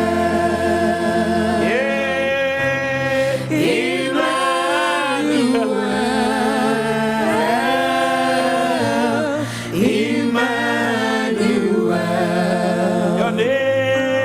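Gospel worship singing: voices hold long notes with vibrato and glide between pitches over steady, sustained low chords.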